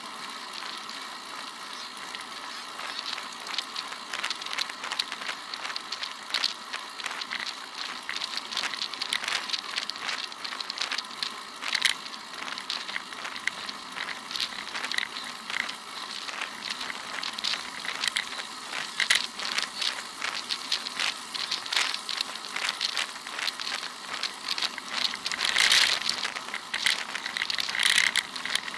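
Irregular crackling and clicking over a steady hiss from a bike-mounted camera rolling over asphalt, road vibration coming through its mount, with a louder crackly stretch near the end.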